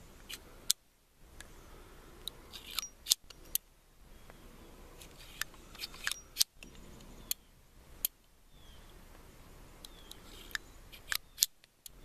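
Ruger Super Blackhawk .44 Magnum single-action revolver being unloaded: the cylinder clicks round chamber by chamber with the loading gate open, and the ejector rod pushes out spent brass cases that come out a little stiff. Sharp metallic clicks and knocks at irregular intervals, some of them loud.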